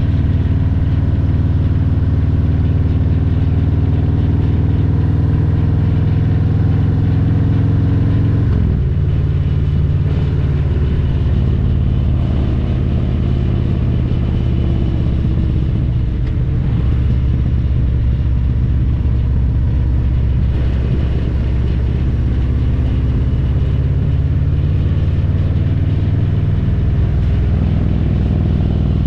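2022 Harley-Davidson Road Glide Special's Milwaukee-Eight 114 V-twin running under way through a Vance & Hines Power Duals header and Cobra Neighbor Hater slip-on mufflers. About a third of the way in, the engine note drops suddenly in pitch, as on an upshift, then holds lower with gentle rises and falls.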